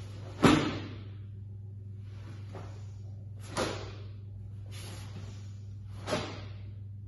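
Karate kata movements: three sharp snaps of strikes, about half a second, three and a half and six seconds in, the first the loudest. Each is led by a breathy rush of movement.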